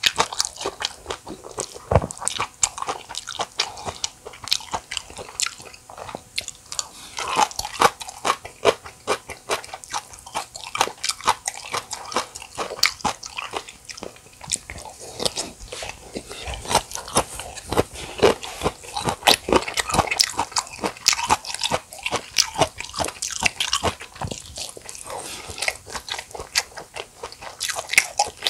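Close-miked chewing and crunching of a mouthful of spicy bibimbap: a dense, continuous run of crisp, wet mouth clicks.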